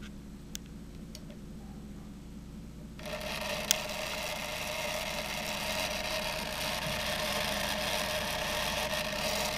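A homemade Van de Graaff generator switched on: its small motor and rubber belt start with a rattling, rubbing run about three seconds in and keep running steadily, with one sharp click just after start-up.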